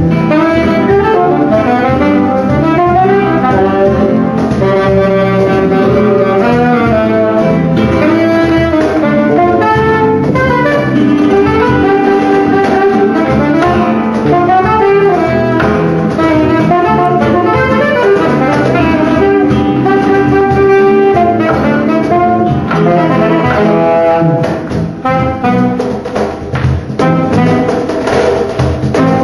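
Live flamenco-fusion band: a saxophone plays melodic lines over acoustic guitar and percussion. Near the end the music drops in level and becomes more broken.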